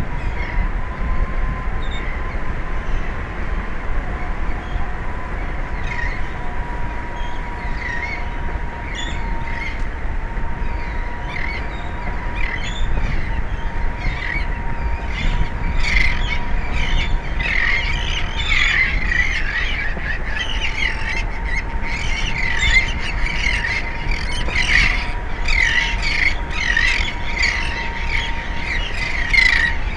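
Seabirds squawking and chirping, the calls growing busier about halfway through, over a steady low rumble and a faint steady hum.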